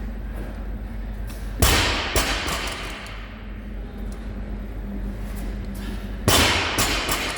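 Two heavy thuds of exercise equipment hitting the gym floor, a few seconds apart, each followed by a smaller bounce about half a second later, over a steady low room hum.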